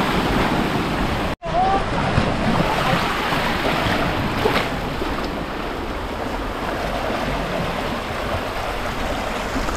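Sea surf washing steadily against the rocky coast, a continuous rush of water noise that cuts out for an instant about one and a half seconds in.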